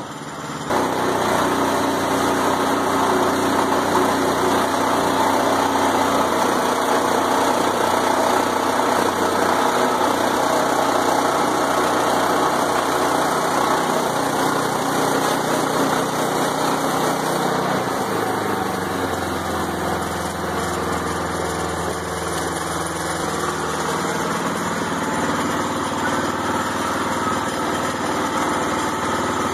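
Woodland Mills portable band sawmill's small gas engine running steadily, jumping up in level just under a second in, with its tone shifting about halfway through.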